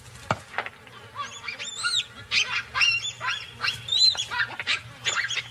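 Baboons screaming in alarm: a quick series of shrill calls, each rising and then falling in pitch, about two to three a second, after a short thud near the start. They are the distress calls of a baboon caught in a crocodile attack in the mud.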